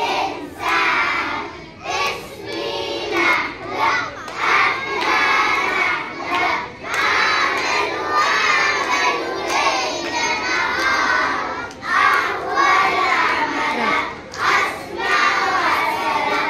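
A group of young children singing loudly together in Arabic, close to shouting, in short phrases with brief breaks between them.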